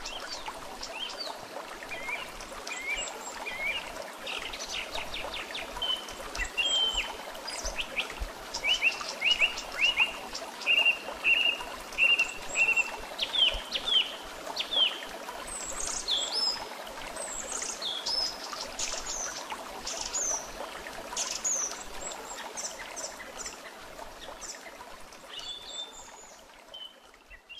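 Several small birds chirping and singing in quick, varied calls over a steady rush of running water, like a stream; the sound fades out at the very end.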